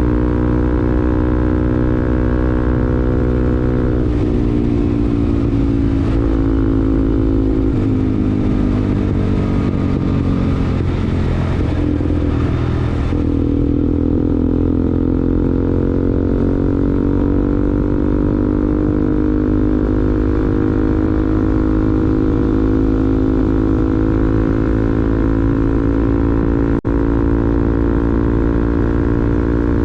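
Bajaj Pulsar NS200's single-cylinder engine through an aftermarket R9 racing exhaust, running while riding at cruising speed. The note wavers and dips around the middle, then holds steady and slowly rises.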